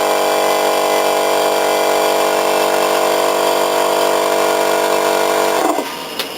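Small electric air compressor running with a steady, even hum. It is switched off about five and a half seconds in and winds down quickly, leaving a steady hiss.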